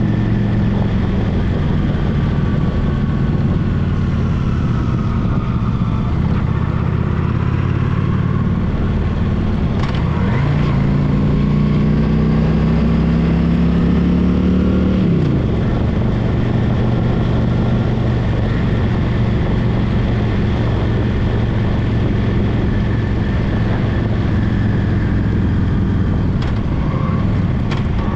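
Honda Shadow Spirit VT750's V-twin engine running under way. About ten seconds in the revs rise and hold higher for about five seconds, then drop back. Tyre and wind noise from the gravel road runs underneath.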